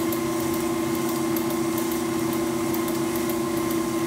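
Electric stand mixer running steadily at speed 4, beating pound cake batter, with a constant motor hum.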